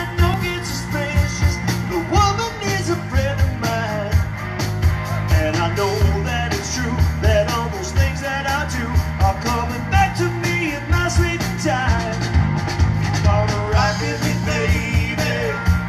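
Live rock band playing electric guitars, bass guitar and drum kit, with a steady kick-drum beat under the guitars.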